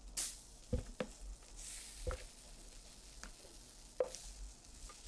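Fluffy whipped egg batter sliding and being scraped from a bowl into a nonstick frying pan, with a soft high hiss and about five light knocks of the spatula against the bowl and pan.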